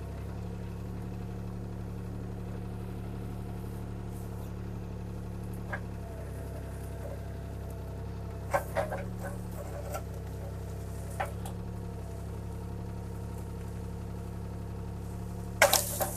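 CAT 303C CR mini excavator's diesel engine running steadily while the machine works at a tree to push it over and pop it out of the ground. A few sharp cracks and snaps come in the second half, the loudest just before the end, as the tree gives way.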